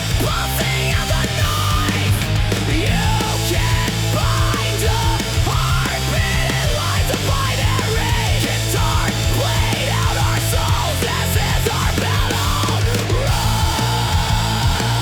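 Dark, heavy industrial rock song generated with Suno AI: a dense, steady low end with lines bending in pitch over it, which give way to a steadier held tone near the end.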